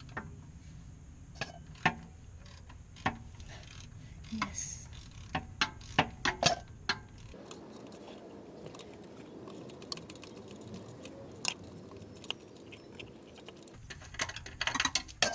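Ratchet and hand tools clicking against metal as a bolt is turned loose: sharp irregular clicks in a cluster through the first half, fewer in a quieter middle stretch, then a quick run of clicks near the end.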